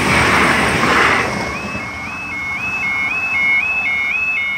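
A train passing over a level crossing, its rushing noise dying away after about a second, while the crossing's warning alarm yelps on with short rising tones, about two to three a second.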